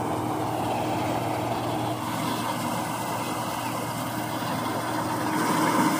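Combine harvester running steadily at working speed while its unloading auger runs, pouring shelled maize into a trolley. The drone grows a little louder near the end.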